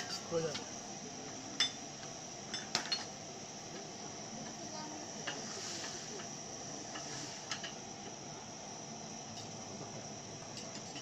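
A spoon clinking and scraping in a copper crêpe pan over a tabletop burner, a few light clinks spread through, over a steady high-pitched tone.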